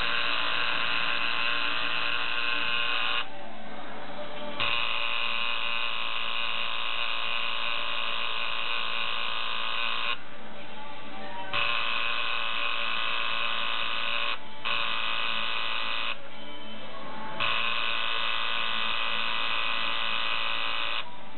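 Coil tattoo machine buzzing steadily while it inks the skin. It stops four times for about a second, one of them very briefly, and starts again each time.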